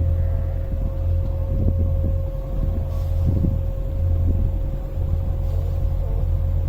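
Sailboat's inboard engine running steadily while motoring, a low drone with a faint constant whine above it.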